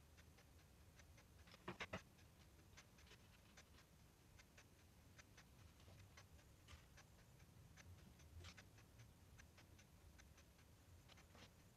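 Near silence: faint, irregular ticks and clicks over a low hum, with three louder clicks close together about two seconds in.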